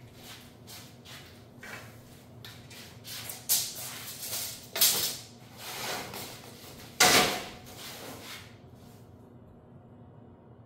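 Steel flat bar, a tape measure and a metal speed square handled on a steel work table while measuring and marking the bar for a cut: a run of short scrapes and clanks, the loudest about seven seconds in, with lighter taps between.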